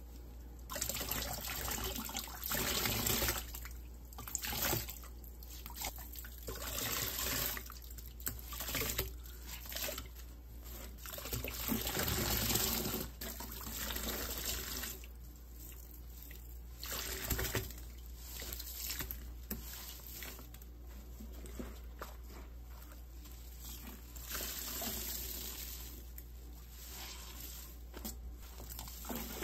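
Wet sponges squeezed and pressed in water in a stainless steel sink: squelching and splashing water in irregular bursts of a second or two.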